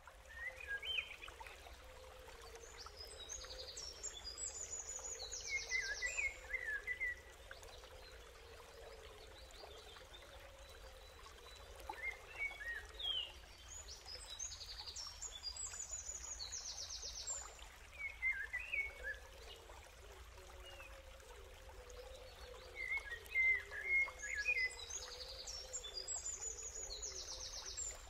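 Birds chirping and trilling over a steady background hiss, a nature ambience bed. Clusters of high chirps come back every nine or ten seconds.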